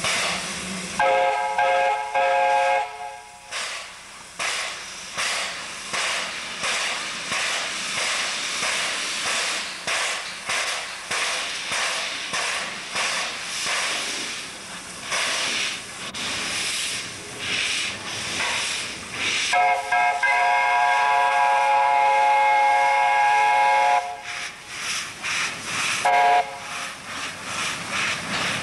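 Narrow-gauge steam locomotive starting off: a short whistle about a second in, then regular chuffing exhaust beats and hissing steam from the open cylinder drain cocks. A long whistle of about four seconds comes about two-thirds of the way through, then a brief toot.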